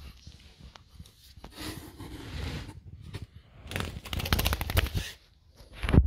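Budgie lying on its side on a tile floor, flapping and scraping its wings against the tiles in bursts, with a fast run of wingbeats about four seconds in: the bird is floundering and cannot get back on its feet.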